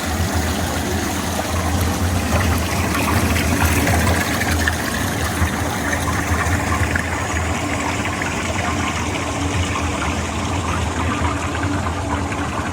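Steady rush of running water, with a low hum underneath.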